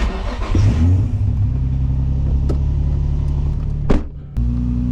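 Nissan 350Z's 3.5-litre V6 engine running steadily. About four seconds in there is a sharp click and a brief drop in sound before the engine note returns.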